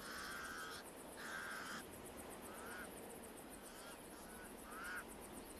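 Pied crows calling: two drawn-out harsh calls in the first two seconds, then several shorter ones. Faint.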